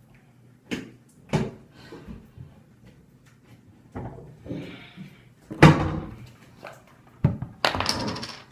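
Bathroom cabinet doors and drawers being opened and shut, with a run of knocks and clunks, the loudest a little past the middle. A plastic bottle is handled, with a brief rustling hiss near the end.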